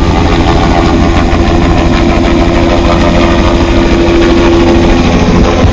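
Helicopter running close by: a loud, steady engine and rotor sound with a held hum over a low throb.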